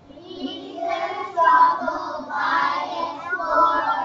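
Young children's voices in a sing-song delivery, in several short phrases whose pitch rises and falls.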